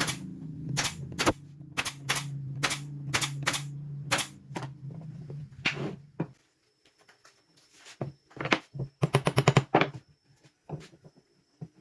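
Sharp, crisp strikes in wood-joining work on a small wooden chair, about two a second over a steady low machine hum that stops about six seconds in. A fast rattling run of strikes comes near the end.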